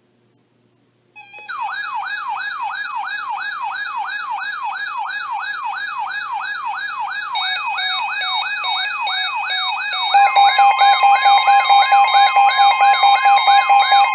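Electronic siren-type alarm tone sweeping up and down about two and a half times a second, starting about a second in. Extra steady alert tones are layered on about halfway through, and a loud steady two-tone alarm joins about ten seconds in.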